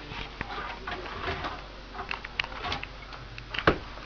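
Pet bird making soft chirps and coos among scattered small clicks and taps, with one louder click near the end.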